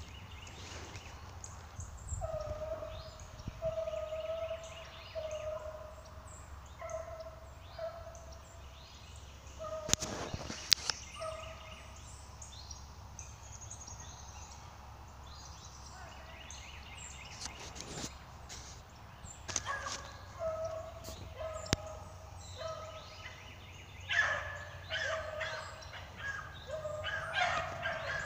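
Beagles baying as they run a rabbit's scent trail: runs of short, repeated howling notes that pause midway and crowd together near the end, the sign that the pack has struck the scent and is following it. A single sharp crack about ten seconds in.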